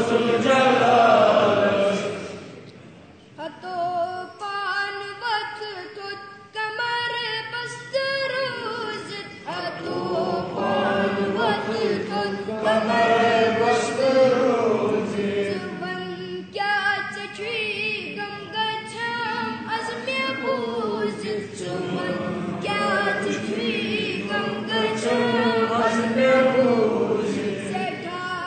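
A child's voice singing a Kashmiri naat, a devotional Islamic song in praise of the Prophet. It moves in melodic phrases with short breaks between lines, including a brief pause about three seconds in.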